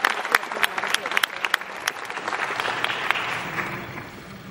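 Audience applauding. The clapping thins out and fades away near the end.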